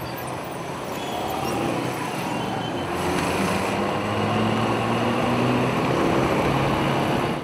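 Motorcycle engine running as the bike rides along a busy street, with road and traffic noise around it; it grows louder over the first few seconds.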